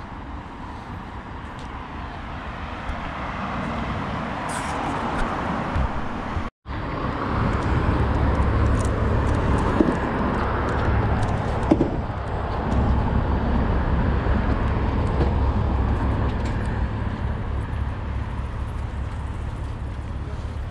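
Road traffic on a city street: cars passing, a steady noise of tyres and engines that grows louder over the first few seconds. The sound cuts out completely for an instant about six and a half seconds in.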